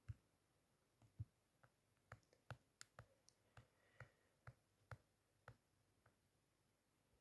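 Faint, irregularly spaced clicks and light taps, about fifteen over several seconds.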